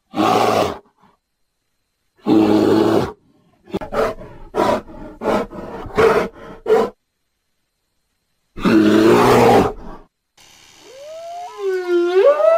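Brown bear roaring in three long, loud calls, with a run of about six short grunts between the second and third. In the last two seconds a humpback whale's song begins: moans that sweep up and down in pitch.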